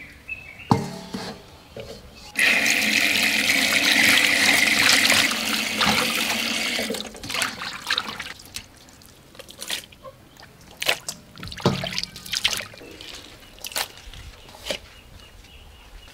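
Tap water gushing into a stainless-steel basin in the sink, starting suddenly about two seconds in and running for about four and a half seconds, where pig intestines are being washed. After it, a thin trickle from the faucet with scattered splashes, drips and knocks on the steel.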